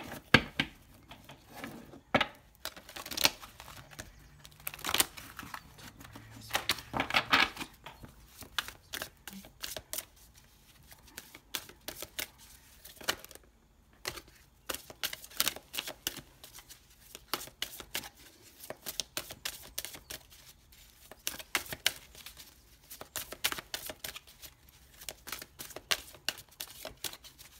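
Tarot cards being shuffled and handled by hand: an irregular stream of quick card clicks and flicks, with a brief pause a little past the middle.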